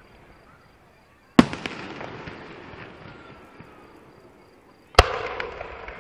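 Fireworks going off: two sharp bangs about three and a half seconds apart, each followed by an echoing rumble that fades over a couple of seconds.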